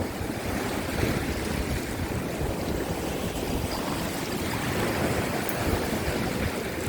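Rough sea surf washing over shore rocks, with strong wind buffeting the microphone in a steady rushing noise.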